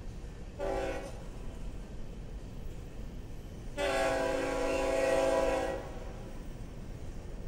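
Locomotive air horn blowing twice: a short blast about half a second in, then a longer, louder blast of about two seconds near the middle.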